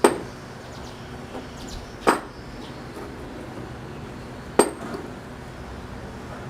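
Three sharp hammer blows on metal, a little over two seconds apart, each with a brief bright ring, over a steady background noise.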